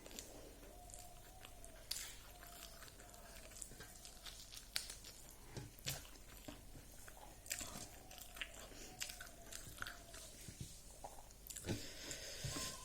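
A person eating rice with fried dried pork close to the microphone: faint chewing and biting with scattered small crunches and clicks.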